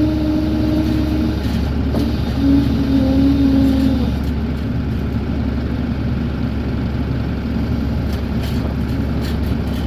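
Bobcat E42 mini excavator's diesel engine running steadily under load, with a steady whine that holds one pitch for about a second at the start and again from about two and a half to four seconds in as the boom and swing are worked.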